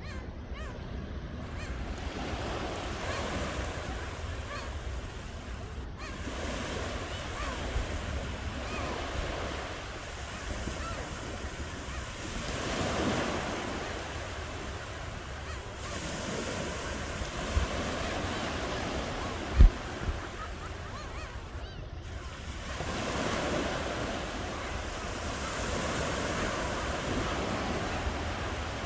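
Ocean waves breaking and washing onto the shore in repeated swells. Two brief low thumps stand out, the louder about two-thirds of the way through.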